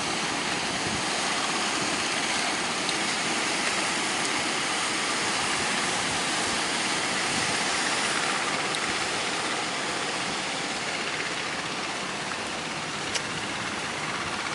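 Strong wind blowing, a steady rushing hiss, with a single faint click about 13 seconds in.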